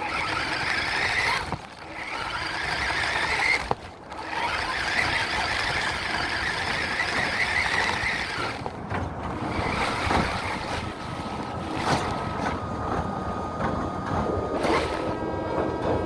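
RC truck's motor and drivetrain whining, rising and falling with the throttle and cutting out briefly twice in the first few seconds. A steady hum of a couple of even tones joins in during the second half.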